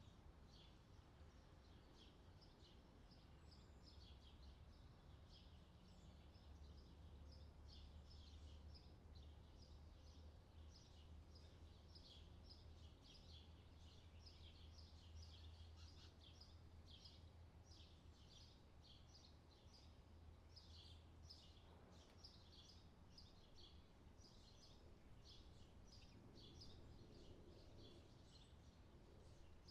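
Faint outdoor summer ambience: many small birds chirping in short, quickly repeated calls over a low, steady rumble.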